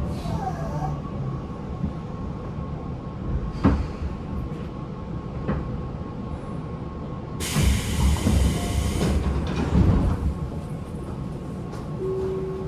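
Interior running noise of a Tobu 9050 series electric train, heard from its motor car: a steady low rumble with sharp clicks over the rails and the air conditioning running. About seven and a half seconds in, a loud hiss lasts for a second and a half.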